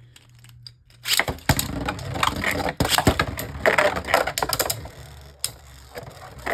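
Beyblade Burst spinning tops (Eclipse Genesis against Shield Kraken) launched into a plastic stadium about a second in, then spinning and clattering against each other and the stadium walls in a rapid run of clicks.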